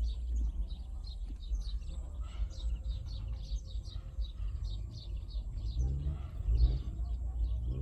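Small birds chirping over and over, many short high calls, over a steady low rumble.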